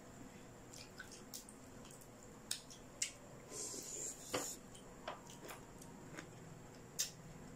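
Faint close-up eating sounds of crispy pata (deep-fried pork leg) being eaten by hand: scattered wet smacks and clicks of chewing and of fingers on the food, with a short crackly crunch around the middle.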